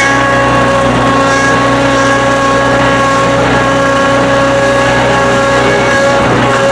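Old skid steer running steadily while being driven, its engine drone with a steady high whine over it.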